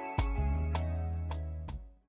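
Music with sustained bass notes and a steady beat of about two hits a second, fading out sharply just before the end.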